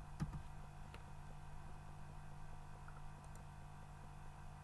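A couple of light computer keyboard keystrokes in the first second, then a faint low steady hum.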